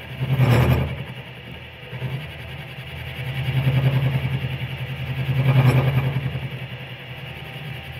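Milling machine cutting a slot in thick steel with an end mill: a steady motor hum with a heavy pulsing vibration that swells and fades. There are two short harsh bursts, about half a second in and again past the middle. The vibration is one the owner cannot yet account for.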